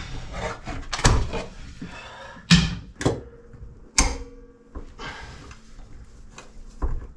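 Hand work on old boat timber: knocks, clunks and scraping of wood and metal as the old chain locker is pulled apart and its galvanized screws are worked out with vice grips. There are about five sharp knocks spread through, the loudest about two and a half seconds in.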